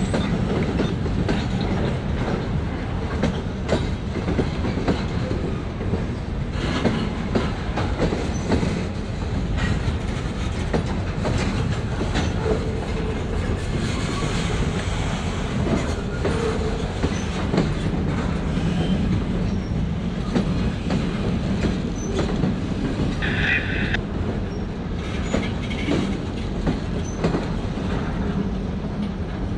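Long freight train rolling past: a steady rumble of steel wheels on rail, with frequent clicks and clacks as the cars go by. A brief high-pitched wheel squeal comes about three-quarters of the way through.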